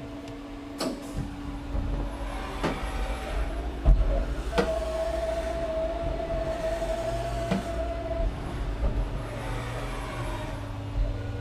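Fadal CNC vertical machining center running an empty program and returning home: several clicks and knocks, then a steady whine for about three and a half seconds as the axes travel to the home position, over the machine's constant low hum.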